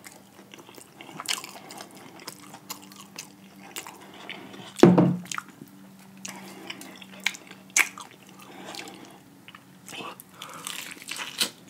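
Close-miked eating of crispy fried chicken drumsticks: crunching bites and chewing, with many sharp crackling clicks and one louder burst about five seconds in.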